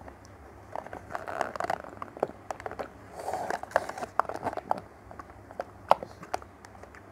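Someone drinking a cold drink from a plastic cup: sipping through a straw, then gulping from the rim, with irregular wet mouth clicks and swallows. There are two longer slurping stretches, about a second in and again around three seconds in.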